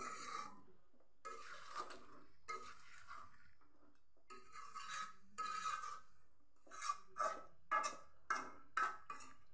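A flat spatula scraping and turning chicken and potato curry against a metal karahi. There are a few long scrapes, then quicker short strokes of about two a second near the end.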